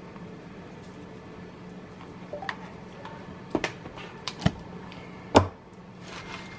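Light kitchen clatter: about six scattered clicks and knocks of containers and utensils being handled, the loudest near the end, over a faint steady hum.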